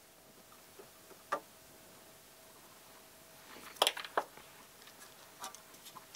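A few light clicks and taps from a printed circuit board and small resistors being handled on a workbench, with one sharp click about a second in and the loudest cluster of knocks about four seconds in.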